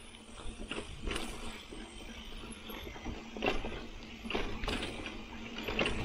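2019 Marin Bobcat Trail mountain bike rolling over a bumpy dirt singletrack: tyre noise on the trail with irregular knocks and rattles from the bike as it hits bumps and roots.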